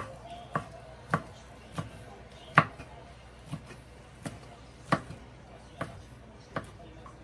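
Kitchen knife chopping on a cutting board: single, unhurried strokes, about one every two-thirds of a second, some landing harder than others.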